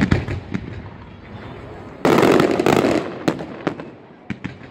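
Fireworks display: a sharp bang right at the start, then crackling, a loud dense run of bursts about two seconds in, and a few single sharp cracks near the end.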